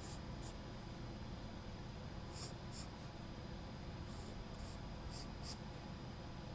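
Charcoal pencil scratching on sketchbook paper in a series of short, faint strokes, over a steady low room hum.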